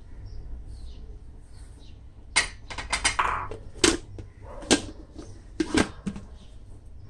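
Plastic blender lid being pushed onto the jar and pressed into place: a brief scrape and several sharp plastic clicks and knocks, starting about two seconds in and coming roughly a second apart.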